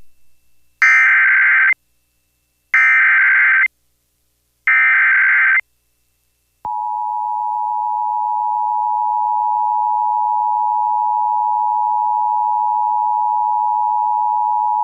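Emergency Alert System transmission: three identical bursts of SAME header data tones, each about a second long and about two seconds apart, then the two-tone attention signal (853 and 960 Hz together) held steady for about eight seconds. It announces a severe thunderstorm warning.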